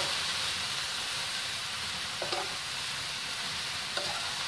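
Cabbage, carrots and chicken sizzling in hot oil in a pan as they are sautéed, a steady hiss, with two short clinks of the metal ladle against the pan, about two seconds in and near the end.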